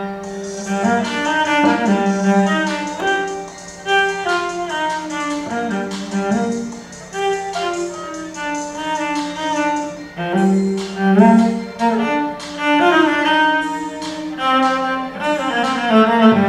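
Solo cello, bowed, improvising a flowing melody over a sustained low drone note.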